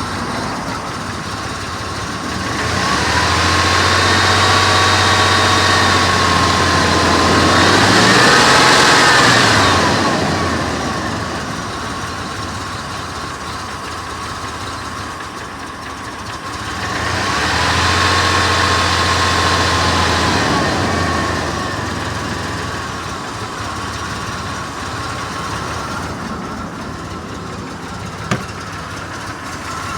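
Chevrolet Blazer engine running at a rough idle. It twice grows louder for several seconds, about 3 s in and again about 17 s in, with a steady whine over a low hum, and its pitch briefly rises and falls near the end of the first swell. A single sharp click comes near the end.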